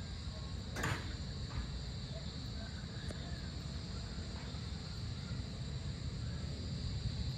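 Steady chorus of insects at dusk, an unbroken high-pitched trill, over a low steady rumble. A short sharp noise comes just under a second in.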